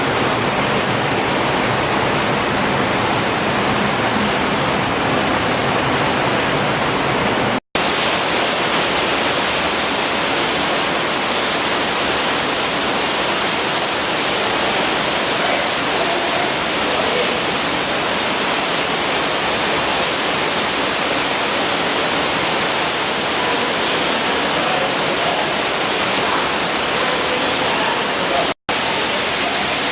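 Water rushing loudly and steadily in an underground cave stream. It breaks off for an instant twice, about eight seconds in and near the end.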